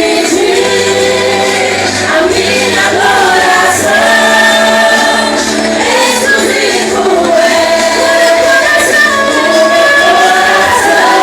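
Live Pentecostal worship music: a group of voices singing together over band accompaniment.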